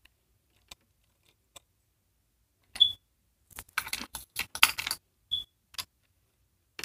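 Small hard objects being handled: scattered clicks, two sharp clicks with a brief high ring, and a short burst of clattering a little past the middle.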